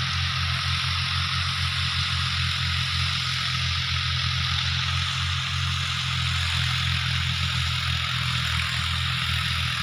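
Fiat tractor's diesel engine running steadily under heavy load as it pulls a rotavator through the soil, a hard pull for this tractor.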